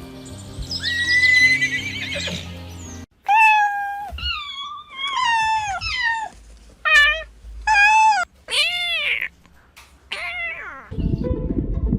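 A cat meowing over and over, about eight separate meows in quick succession, several rising and falling in pitch, with background music before and after.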